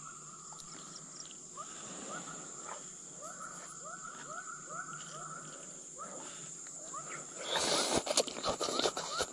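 Forest ambience: a steady high insect drone with short rising chirping calls repeated many times. About seven and a half seconds in, a louder burst of rustling with sharp clicks begins.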